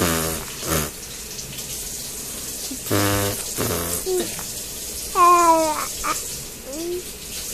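A baby blowing wet raspberries with her lips, her 'fart noises': a spluttering lip buzz at the start and another about three seconds in, with a short higher-pitched baby vocal sound a couple of seconds later.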